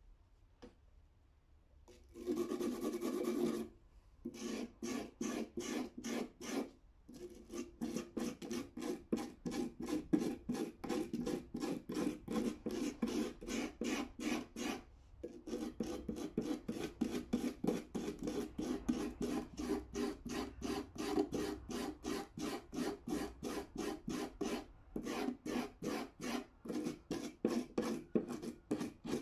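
A stiff hand brush scrubs rust off the steel jaws and handles of old end-cutting nippers in quick back-and-forth strokes, about three a second, with a few short pauses.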